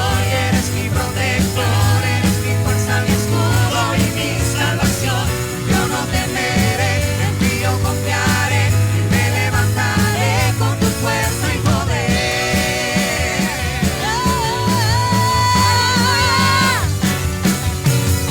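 Live worship band playing an instrumental passage of a worship song with a steady drum beat and bass. About two-thirds of the way in, a held lead note with vibrato takes over and slides down in pitch near the end.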